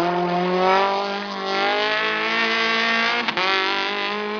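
Renault Clio RS rally car's engine running hard at high revs, with a steady, held pitch and a short break about three seconds in.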